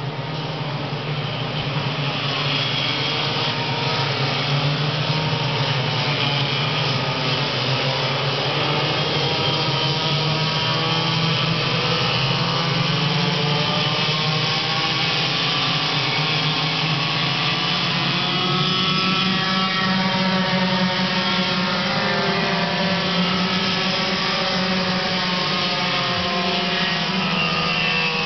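A pack of racing go-karts circulating, several small engines at high revs at once, their pitches rising and falling against each other. The sound builds over the first couple of seconds, then holds loud and steady.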